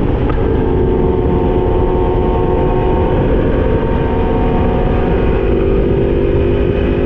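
Yamaha MT-10's crossplane inline-four engine running at steady revs under way, with heavy wind rush over the microphone.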